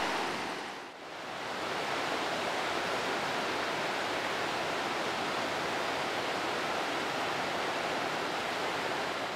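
Steady rushing of a whitewater mountain river, briefly dipping about a second in and then holding level.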